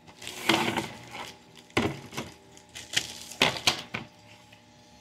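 Clear plastic bag around a graded comic slab crinkling and rustling as it is handled, in about five short, rough bursts.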